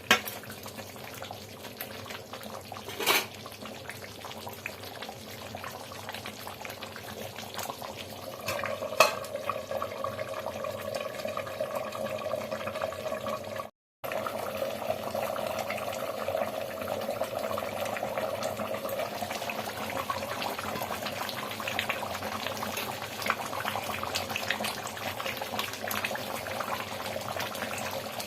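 Dahi chicken curry simmering and bubbling in a pan, with a few sharp clinks of a spoon or utensil against the pan. The sound cuts out for a moment about halfway.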